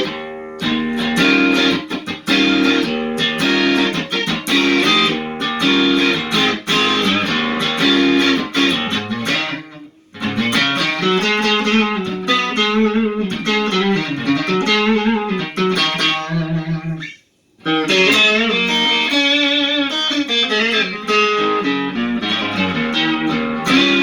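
Electric guitar played through a Lovepedal Supersix overdrive pedal into a Fender Hot Rod Deville tube amp, dry with no reverb and the highs turned down a little. Picked lines and chords ring on, with brief pauses about ten and seventeen seconds in.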